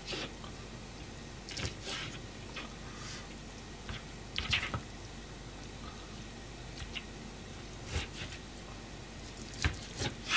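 Kitchen knife cutting raw chicken on a plastic cutting board: several soft, squelchy cuts and light knocks of the blade on the board at irregular intervals.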